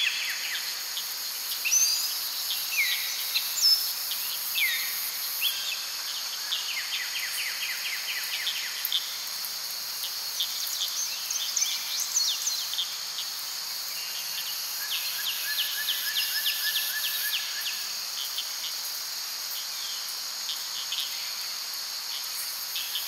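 Small songbirds singing: scattered chirps, fast trills and short down-slurred whistles, over a steady high hiss.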